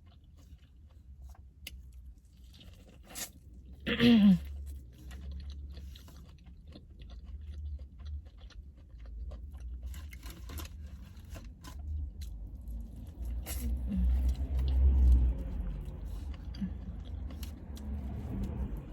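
Close-miked chewing and crunching of fried chicken wings, with many small crisp clicks. About four seconds in there is a brief vocal sound that falls in pitch.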